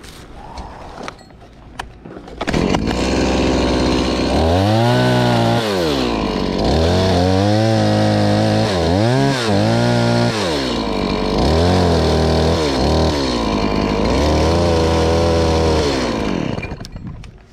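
Two-stroke chainsaw cutting tree limbs. It comes in about two and a half seconds in and is revved repeatedly, its pitch rising and falling in about six swells, then stops shortly before the end.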